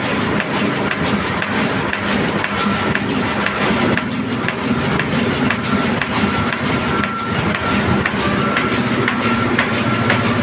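A heavy engine running steadily, with a faint regular ticking about twice a second over the rumble.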